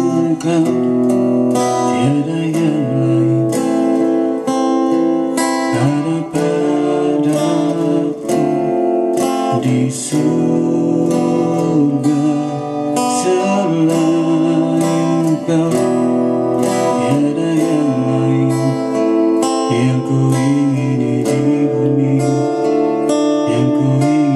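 Acoustic guitar music, steady and loud throughout.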